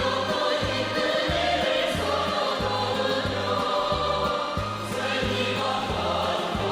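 Music: a North Korean pop song, with a choir singing over a pulsing bass line and a steady drum beat.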